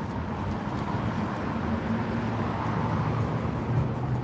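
City street traffic: a motor vehicle's engine running close by, a low steady hum over the general noise of the street.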